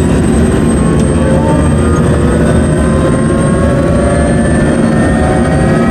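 Helicopter engine and rotor running loud and steady, with a whine slowly rising in pitch.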